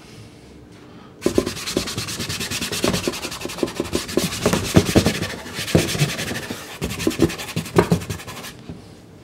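A hand rubbing soft pastel into Sennelier La Carte sanded pastel card, a fast run of rasping back-and-forth strokes with occasional soft knocks. It starts about a second in and stops shortly before the end.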